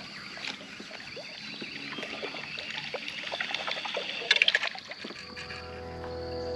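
Light water trickling and small knocks around a fishing kayak, with a quick rattle of clicks about four and a half seconds in. Music with held notes fades in about a second later.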